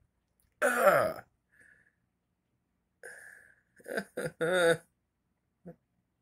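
A man's frustrated wordless vocal noises: a groan falling in pitch about half a second in, then a cluster of short grunts and a longer groan about four seconds in.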